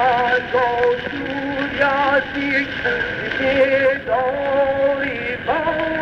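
Shashmaqam music from an early gramophone recording: a melodic line moves note to note with quick wavering ornaments, over a steady hiss of surface noise.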